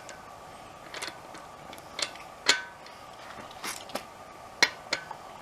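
Wheel lock lug nut being tightened with a socket wrench: about seven sharp metal clicks and clinks, spaced unevenly.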